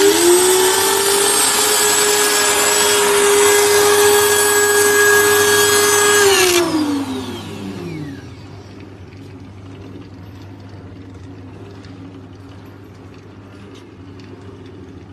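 The high-speed trimming-cutter motor of an edge banding machine spins up and runs with a steady high whine and a loud rush as the board's edge is trimmed. About six and a half seconds in it is switched off, and its pitch glides down as it winds to a stop, leaving a faint low hum.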